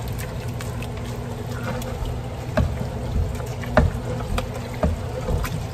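Wooden spoon stirring a wet mixture of ground beef, diced tomatoes and cauliflower rice in a tall pot, with a few irregular knocks of the spoon against the pot over a steady low hum.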